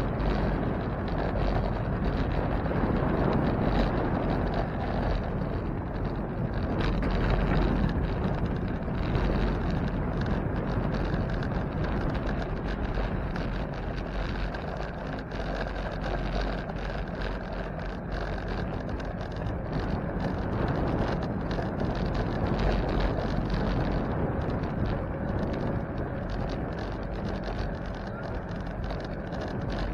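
Wind rushing over the microphone during a bicycle ride: a steady low noise that swells and eases, with light clicking or rattling in the last few seconds.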